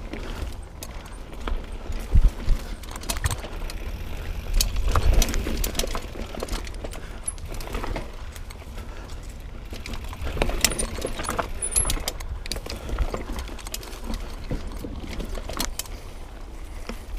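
Mountain bike rattling and clattering over a rough trail of roots and rocks: irregular metallic jangling and knocks, with heavier thumps about two seconds in and again around five seconds in, over a steady low rumble.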